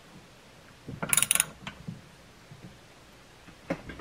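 Hand ratchet clicking in a short quick burst about a second in as a bolt is turned, with a few fainter metal clicks near the end.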